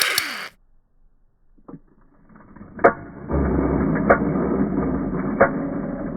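A toy gun fires with a sharp crack. From about three seconds in comes a muffled mechanical rumble with three clicks, like slowed-down slow-motion audio.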